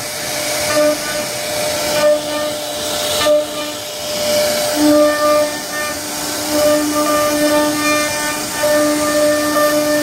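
CNC router spindle whining at a steady pitch while its bit carves a wooden door panel, with the hiss of the wood being cut. The whine grows and fades as the bit's load changes.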